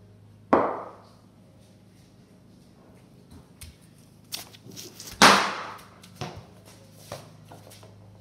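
Cricket ball and bat knocks ringing in a large, bare garage: a sharp crack about half a second in, a few lighter taps, then the loudest crack a little past halfway with a long echoing tail, and two smaller knocks after it.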